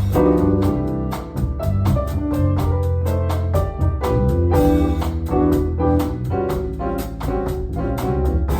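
Jazz piano trio playing live: piano chords over walking bass notes, with the drums keeping a steady beat.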